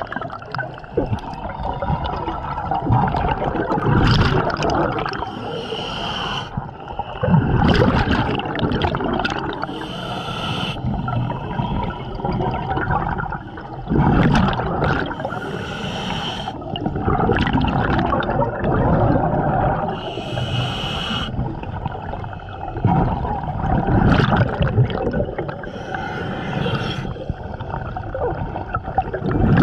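Scuba diver breathing underwater through a regulator, about every five seconds: a hiss on each inhale, then a low bubbling rush as the exhaled air leaves.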